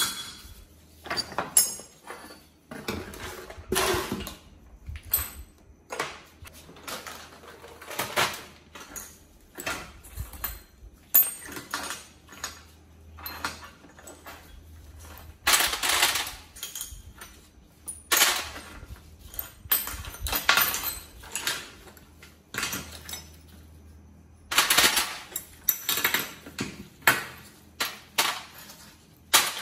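Small greasy metal engine parts, bolts and pieces being picked up and set down in a steel tray, with irregular clinks and clatters, some in quick clusters.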